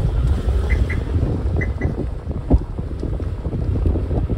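Wind buffeting the microphone of a moving car, over a low road and engine rumble. Two quick pairs of short high chirps come about a second in and near two seconds, and a single thump sounds past the middle.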